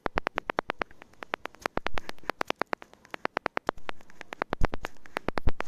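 Rear ultrasonic parking sensor of a Ford Fiesta Mk7 ticking rapidly and evenly, about ten ticks a second, picked up by a phone microphone pressed against it. The ticking shows that this sensor is emitting and works. A couple of low thumps from the phone being handled come near the end.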